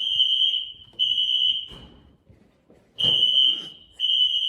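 Building fire alarm sounding the temporal-three evacuation pattern: loud, high-pitched beeps about half a second long, one a second, in groups of three. Two beeps, a pause of about a second, then two more.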